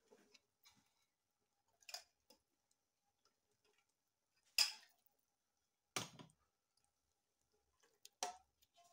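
Metal ladle and spoon knocking against a large aluminium cooking pot while stirring and scooping soup: about six separate clinks, the loudest about four and a half seconds in.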